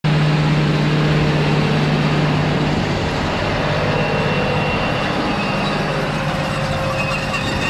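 John Deere 8310R tractor's diesel engine running steadily under load while pulling a six-metre tined cultivator through the soil, a continuous low hum that eases slightly as the tractor moves along. A faint high squeal comes in near the end.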